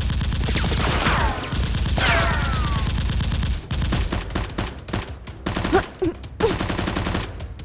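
Rapid automatic gunfire sound effects: a continuous fast burst for about the first three and a half seconds, crossed twice by falling whistling tones, then more scattered shots.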